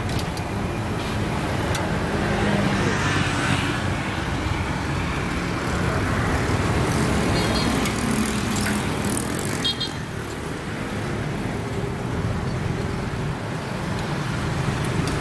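Steady road traffic noise, a continuous rumble of passing vehicles that swells and eases a couple of times.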